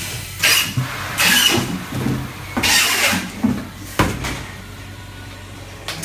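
Lipovak gas-flush chamber vacuum packaging machine running its cycle: the vacuum pump hums steadily, with several hissing bursts in the first three seconds and a sharp click about four seconds in.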